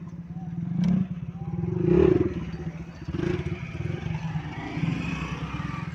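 A motor running steadily with a low, rapid throb, with light scraping and clatter over it from hand work on a sewing machine's presser-foot lifter as it is rubbed with sandpaper and turned in its hole.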